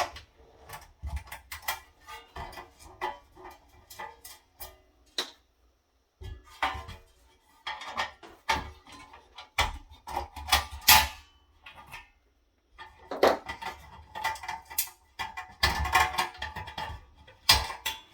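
Irregular metal clicks, clinks and clattering from hand-removing small locking nuts and handling the electronics unit's metal case, some knocks ringing briefly.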